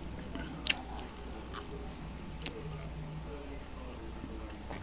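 Close-miked eating sounds of a man chewing pancit bihon rice noodles, with a few sharp clicks. The loudest click comes less than a second in and another about two and a half seconds in.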